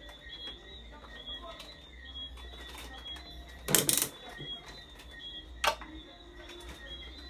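Tools and fan parts being handled during disassembly: a brief rattling clatter about halfway through, then a single sharp knock, over a faint steady background with small high chirps.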